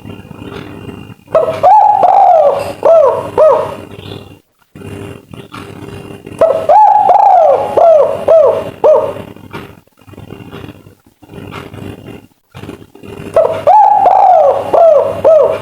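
Spotted dove (tekukur) of the 'kuk 3' song type cooing three times, each phrase a drawn-out opening coo followed by a run of short falling notes, over a steady noisy background with scattered clicks.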